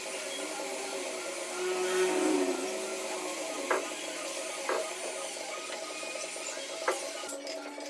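A workshop power tool's electric motor running steadily, its pitch dipping briefly about two seconds in as if under load, with a few sharp clicks or taps.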